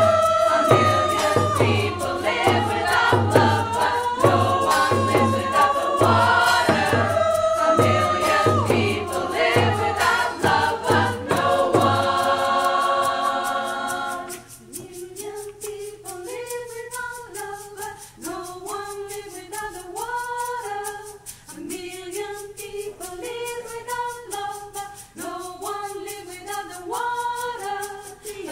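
A choir sings over a steady frame-drum beat, then holds a chord about twelve seconds in. From about fourteen seconds the drum stops and the choir goes on more quietly in short phrases.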